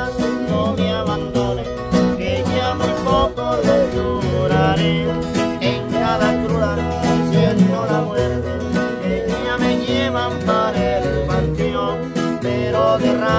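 Acoustic guitars strummed and picked over a deep bass line from a large acoustic bass guitar, with voices singing along in a Mexican-style string-band song.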